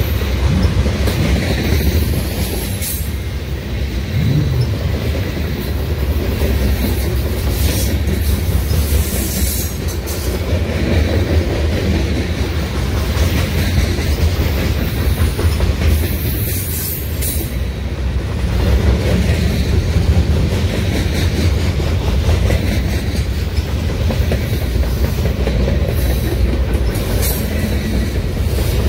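A long freight train of covered hoppers, tank cars and lumber-loaded centerbeam flatcars rolling past close by: a steady low rumble of wheels on rail. Brief sharp high-pitched clicks and squeals from the wheels come now and then.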